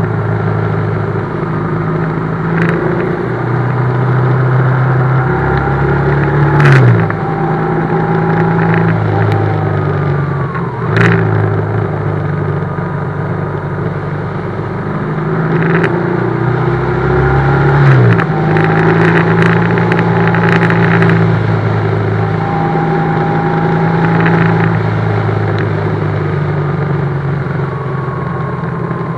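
BMW GS motorcycle engine running as the bike is ridden. The engine note rises and falls and drops sharply about seven and eighteen seconds in, as with gear changes or the throttle being rolled off.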